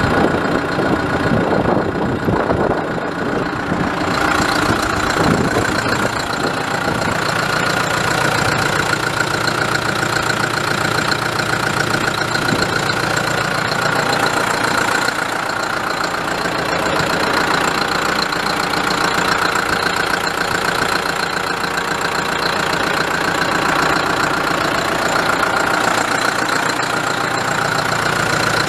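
New Holland TS110 tractor's four-cylinder turbo diesel engine running steadily at idle.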